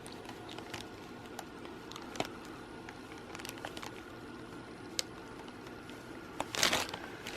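Faint handling noises as protective tape is taken off a new cordless vacuum: scattered small clicks, and a short rustle about six and a half seconds in.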